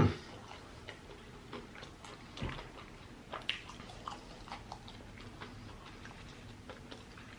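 Close-miked chewing of food: scattered soft wet mouth clicks and smacks, with a brief voiced hum right at the start.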